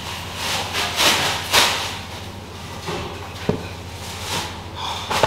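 Ceramic mug set down on a table with a sharp knock, after a few brief rustling, scraping handling noises, over a steady low hum.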